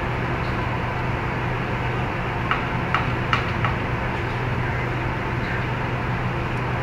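Steady low machine-like hum and hiss. Four short, sharp chirps come a little past halfway, in quick succession.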